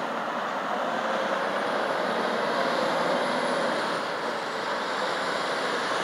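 Semi-truck with a dry-van trailer driving along a multi-lane road: a steady rush of engine and tyre noise that grows a little louder near the end as it comes closer.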